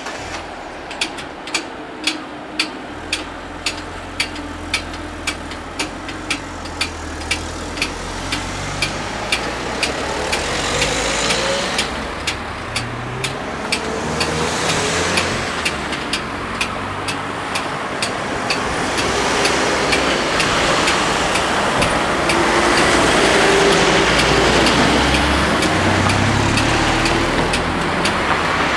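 Level-crossing bells ringing in quick regular strokes, about two a second, as the barriers lift, over car engines idling and then cars driving across; the strokes fade in the second half as the traffic grows louder.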